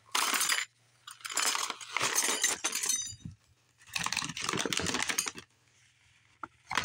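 Stainless steel reusable straws being handled and tipped out of their cardboard packaging: the box and paper rustle in three stretches, and the straws clink with a short metallic ring about three seconds in and again at the end.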